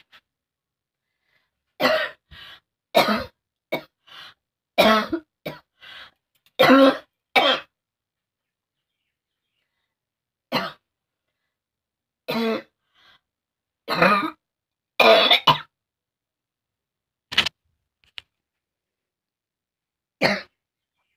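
A person coughing hard and deliberately for a coughing challenge, with throat-clearing. About ten short coughs come in a quick run early on, then single coughs and pairs follow every couple of seconds with silent pauses between.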